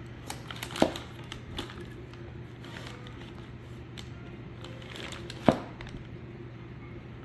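Scattered light clicks and knocks from a B&M floor shifter's metal parts being handled, with two sharper knocks, one near the start and one past the middle, over a steady low hum.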